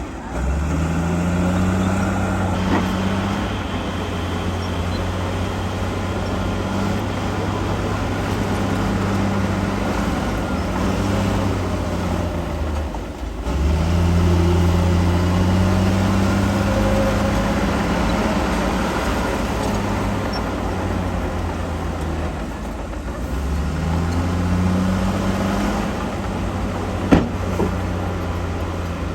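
Heavy diesel engine of earthmoving equipment working, its pitch rising as it revs up three times: about half a second in, after a brief dip near the middle, and again a few seconds from the end. A single sharp knock comes shortly before the end.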